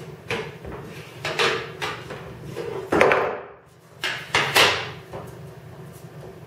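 Aluminium wing rib clattering as it is crimped in a hand-lever fluting tool, lifted out and set down on the table: a series of sharp metallic knocks and rattles, loudest about three seconds in and again near four and a half seconds.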